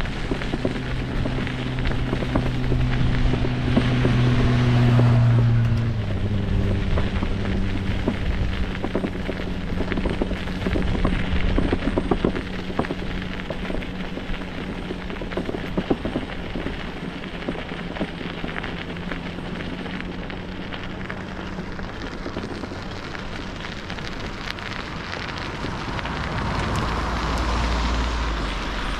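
Bicycle tyres rolling over a grit-strewn path with wind on the microphone, heard as a continuous rushing noise full of small crackles. A steady low hum runs under it and changes pitch about six seconds in, and the rushing swells again near the end.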